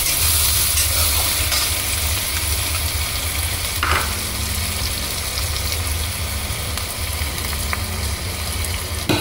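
Chopped onions sizzling in hot oil in a metal kadhai, stirred with a flat metal spatula, with one knock of the spatula against the pan about four seconds in. A low steady hum runs underneath.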